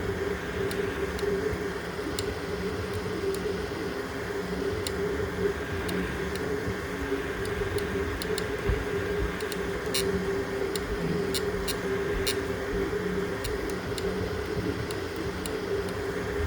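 3D printer running: a steady mechanical hum with a few faint, scattered clicks.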